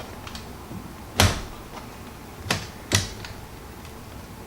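Three sharp plastic clicks and knocks, the first the loudest, as a new laptop battery is handled and pushed into the battery bay of a Dell Inspiron 14R.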